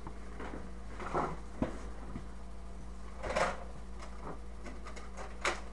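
Hand tools being handled while needle-nose pliers are fetched: a few scattered knocks and scrapes, the loudest about three and a half seconds in, over a steady low hum.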